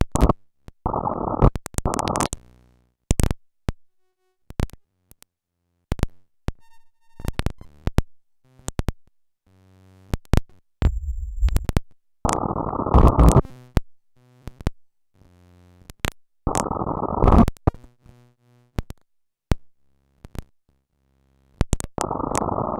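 Harsh digital glitch noise: abrupt blocks of dense, muffled static that switch on and off suddenly, broken by sharp clicks and pops, stuttering low tones and brief silences. The loudest blocks come about a second in, at about 12 and 16 seconds in, and again near the end.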